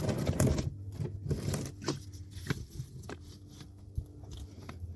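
Rustling, light scrapes and clicks of hands handling parts and tools, loudest in the first second, over a steady low hum.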